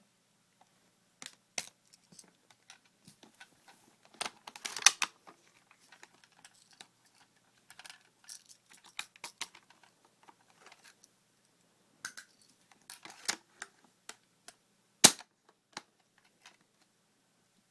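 Irregular clicks, taps and knocks of an airsoft sniper rifle's parts being handled during disassembly, with two louder sharp clacks, one about five seconds in and one about fifteen seconds in.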